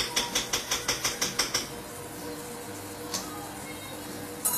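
Quick, even tapping of a utensil against a bowl, about five strokes a second, stopping a little under two seconds in. A single sharp click near the end.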